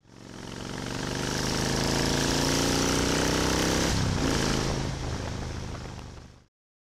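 Motorcycle engine running, its pitch climbing slowly and shifting about four seconds in. The sound fades up at the start and fades away near the end.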